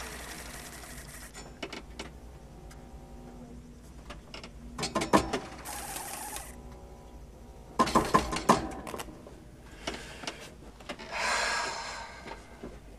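Machinery inside a mechanical rhino: clusters of sharp mechanical clicks and clanks, about five and eight seconds in, over a faint steady hum, with three bursts of hissing.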